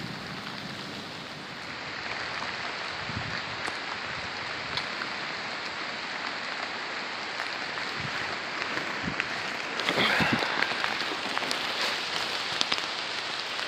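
Steady rain falling in a thunderstorm, an even hiss of drops, with a short louder spell and a few sharp taps about ten seconds in.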